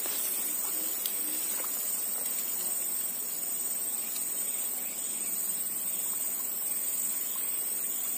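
A steady high-pitched insect chorus, with a few faint ticks.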